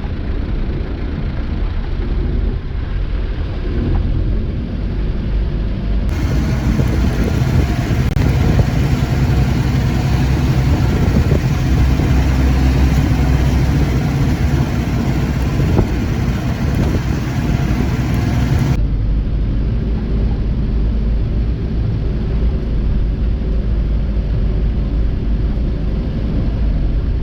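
Daihatsu Taft F50 off-roader driving on a rough track: a steady, loud low engine and road rumble throughout. From about six seconds in to about nineteen seconds in, a brighter hiss joins the rumble and then cuts off suddenly.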